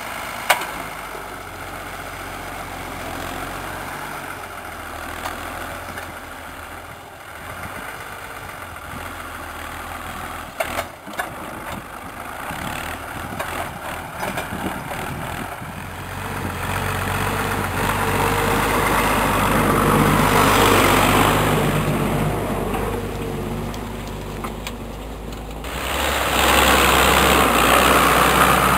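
Deutz-Fahr AgroPrima 6.06 tractor's six-cylinder diesel engine running steadily under load while pulling a reversible plough through the soil. It grows louder twice in the second half as the tractor comes close.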